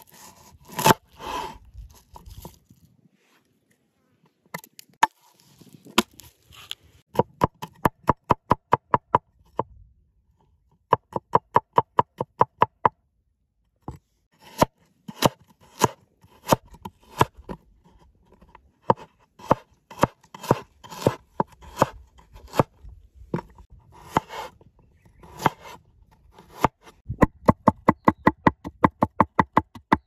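A heavy cleaver chopping garlic, carrot and ginger on a wooden board. It comes in runs of quick knocks, about five or six a second, broken by short pauses.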